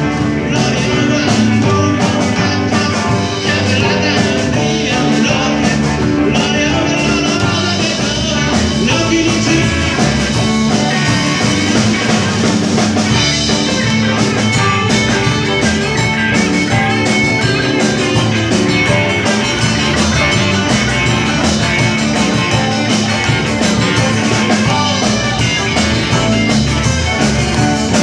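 Live rock band playing, with electric guitars, drum kit and keyboard.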